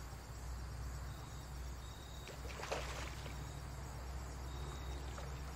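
Quiet outdoor ambience: a steady low rumble with a faint, thin, high insect-like tone now and then, and one brief noise about two and a half seconds in.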